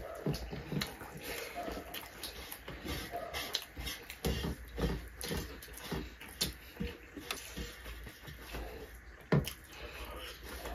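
Mukbang eating sounds: chewing and lip smacking from two people eating rice and curry by hand, with fingers working the food on metal plates, as a run of short wet clicks and smacks. A sharper knock comes about nine seconds in.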